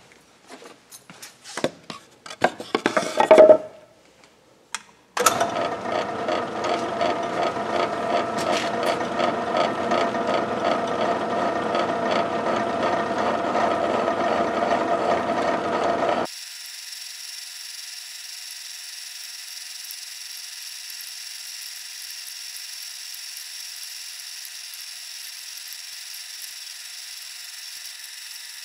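Metal lathe running, a twist drill in its tailstock boring through a poured-lead bearing in a spinning steel housing, preceded by a few clicks and knocks of setting up. About halfway through, the loud cutting sound gives way to a quieter, thinner steady whine.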